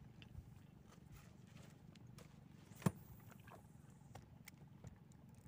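Quiet lakeside ambience with a steady low rumble, a few faint clicks and knocks, and one sharp click about three seconds in.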